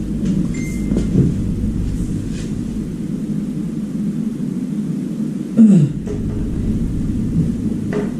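Steady low machine rumble, with a short louder sound falling in pitch a little over halfway through.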